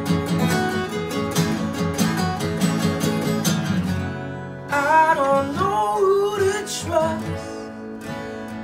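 Two acoustic guitars strumming and picking a steady rock rhythm. About halfway through, a man's voice comes in singing a few held, bending notes over them.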